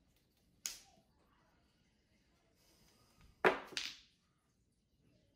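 Mahjong tiles clacking as they are played: one sharp click about two-thirds of a second in, then a louder double clack about three and a half seconds in.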